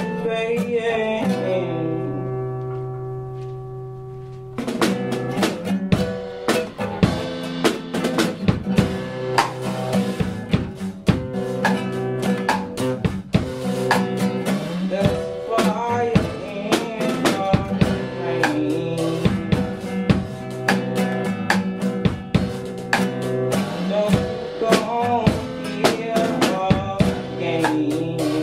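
Live acoustic song: a sung word over a strummed acoustic guitar chord that rings and fades, then about four and a half seconds in a Gretsch drum kit comes in with the guitar and keeps a steady beat.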